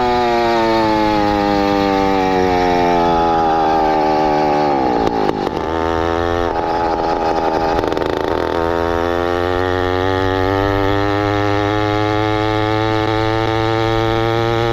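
Small motorized-bicycle engine running. Its pitch falls steadily for about five seconds as it slows, turns rough and uneven for a few seconds, then climbs gradually as it picks up speed again.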